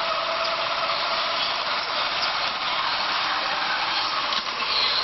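Steady traffic and engine noise of a moving road vehicle, with a whine that fades out about a second in.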